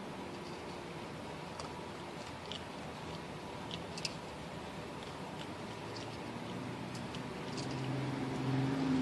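Raccoon eating dry cat food from a bowl: scattered small crunches and clicks of kibble over a steady hiss. Near the end a low engine hum grows louder.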